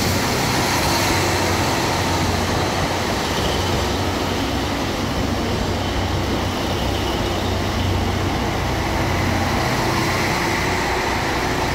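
Limited-express train moving past alongside a station platform: a steady running noise of wheels on rails and running gear, even throughout.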